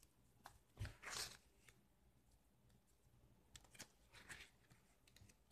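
Faint rustling of paper pages being turned in a ring-bound journal, with a few soft taps and ticks.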